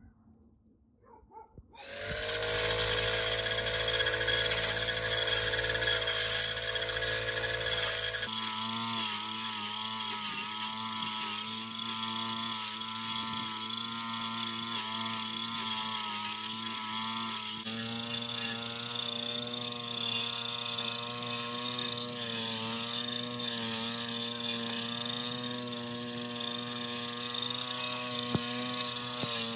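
Small engine of a backpack brush cutter running steadily while cutting weeds, its pitch wavering slightly. It starts abruptly about two seconds in, after near quiet, and its sound shifts suddenly twice further on.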